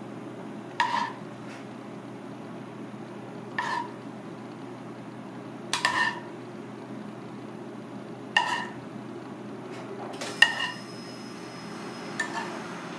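Metal kitchenware clinking: about six sharp clinks, roughly every two seconds, each ringing briefly with the same bell-like tone, over a steady low hum.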